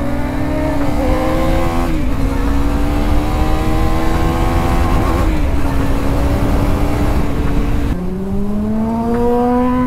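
Motorcycle engine heard from the rider's seat while accelerating through the gears. Its pitch climbs, drops at a gear change about two seconds in, climbs again until about five seconds, holds steady, then drops near eight seconds and starts climbing again.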